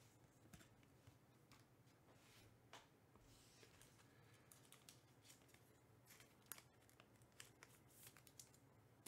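Near silence with faint, scattered clicks and light rustles of trading cards being handled.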